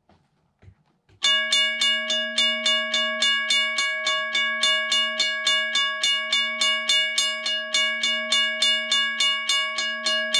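Railroad crossing signal bell that starts ringing about a second in, struck about three times a second, its tone carrying on between strikes.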